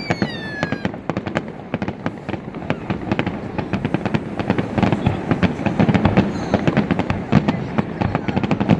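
Fireworks display: a rapid, dense crackle of bangs and pops that grows louder a few seconds in. In the first second a whistling tone falls in pitch.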